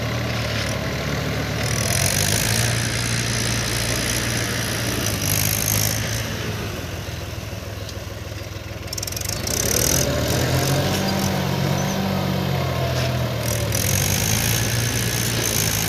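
Tractor diesel engine running steadily. It eases off about seven seconds in and picks up again about ten seconds in, its pitch rising and then falling.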